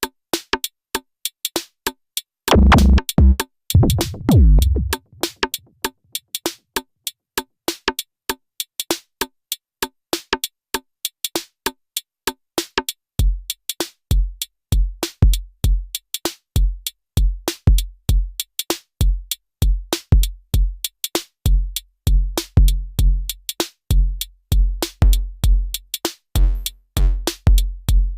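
Elektron Syntakt drum machine playing a synthesized drum pattern: a fast run of short, crisp clicky hits throughout. A few seconds in come two long, deep low hits that fade slowly, and about halfway through a steady kick drum joins the pattern.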